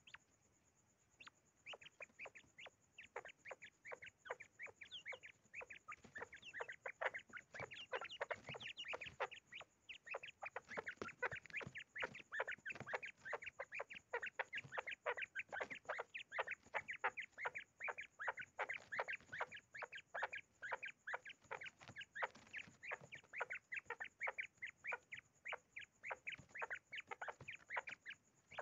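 Common quail giving a long run of short, sharp calls, several a second: the agitated, angry calling of a tame quail.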